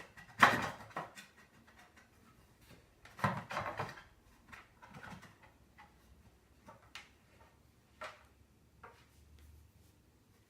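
Scrap wooden board being worked by hand: scattered knocks, clicks and short scrapes, with a brief cluster of scraping strokes about three seconds in.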